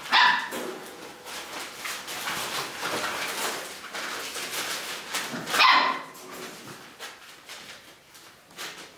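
Young puppies playing: two short, high-pitched barks, one at the start and one about five and a half seconds in, with scuffling and rustling between them.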